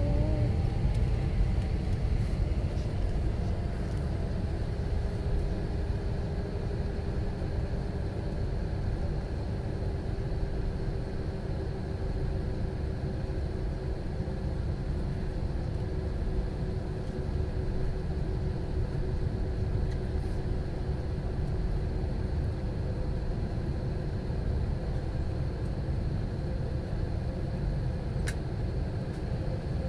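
Steady low rumble inside the cabin of an Airbus A321 jet as it taxis with its engines at idle, with a faint steady hum over it.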